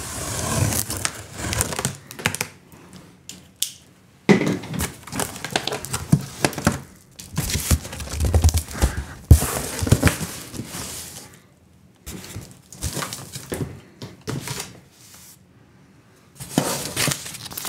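Cardboard shipping box being opened: packing tape slit with a knife and pulled free, and the cardboard flaps folded back and handled. The sound comes in irregular crinkling, scraping bursts with short pauses.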